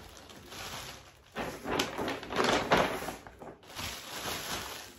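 Gift wrapping and clear plastic packaging crinkling and rustling as a present is unwrapped by hand, loudest in a stretch from about a second and a half to three and a half seconds in.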